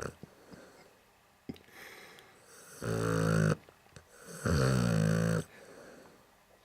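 A sleeping Neapolitan Mastiff snoring: two loud, low snores about a second long each, the second starting about a second and a half after the first, with quiet breathing between.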